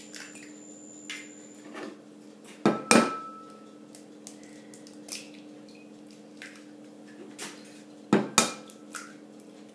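Eggs being cracked into a glass mixing bowl: two pairs of sharp knocks, about three seconds in and again near the end, with lighter clicks of shell in between.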